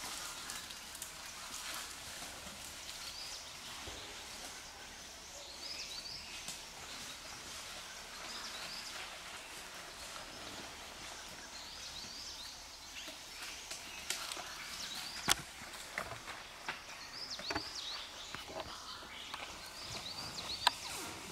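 Outdoor forest ambience: small birds chirping repeatedly over a steady high hiss, with a few sharp clicks or snaps, the loudest about 15 seconds in and another near the end.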